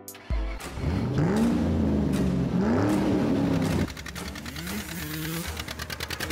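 Kawasaki dirt bike engine revving up and down several times. After a cut about four seconds in, the engine sound is quieter, with smaller revs and a rapid, even pulsing near the end.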